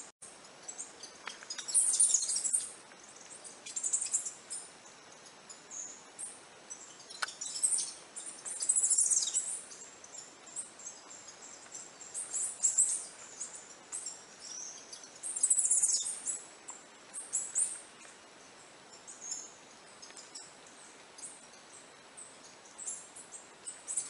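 Indian palm squirrel giving its high-pitched chirping call: short bursts of rapid chirps, each about half a second to a second long, repeated every two to four seconds.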